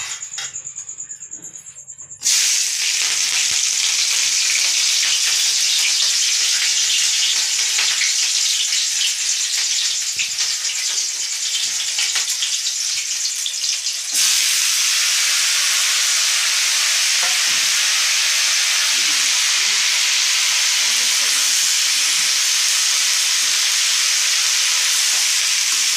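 Sliced spiny gourd and bitter gourd stir-frying in hot oil in a pan, a steady loud sizzle with stirring. The sizzle starts abruptly about two seconds in and steps slightly louder about halfway through.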